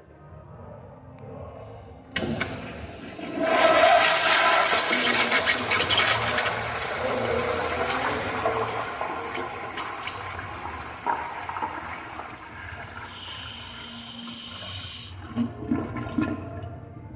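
Kohler Kingston toilet flushed by its flushometer valve. The valve opens with a sudden rush about two seconds in, and water jets loudly into the bowl, easing gradually. A thin whistling tone comes in near the end, and the valve shuts off abruptly about fifteen seconds in.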